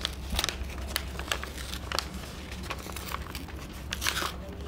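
Paper envelopes and letters rustling and crinkling as they are opened and unfolded, in short irregular crackles.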